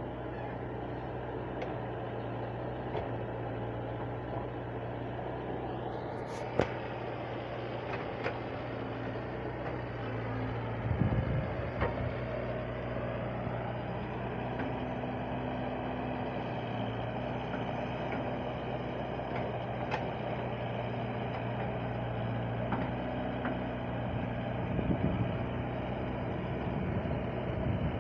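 Wheeled excavator's diesel engine running steadily as it works its arm and bucket, surging louder for a few seconds about eleven seconds in and again near the end. A single sharp click comes about six and a half seconds in.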